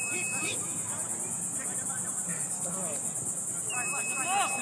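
Steady, high-pitched, rapidly pulsing chorus of insects, with faint distant voices beneath it.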